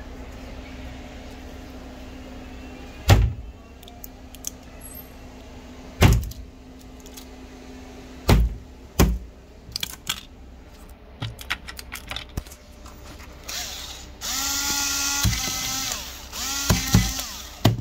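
Sharp knocks and clicks on a tabletop as a pill blister pack is worked open. Near the end a small cordless screwdriver whirs in two short bursts as its bit is driven into the blister.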